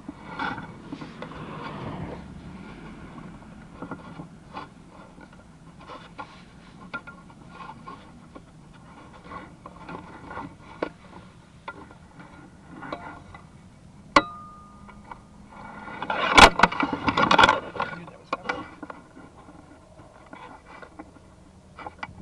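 Sewer inspection camera and its push cable being worked through a drain pipe: scattered knocks and scrapes over a steady low hum, with a brief tone about two-thirds of the way in and a louder stretch of scraping soon after.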